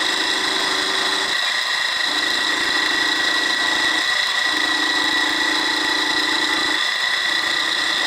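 Chester bench milling machine side-milling mild steel with an end mill: a steady high-pitched whine from the running spindle, with a lower hum that comes and goes every second or two. The cutter is a good replacement end mill, cutting freely and throwing chips.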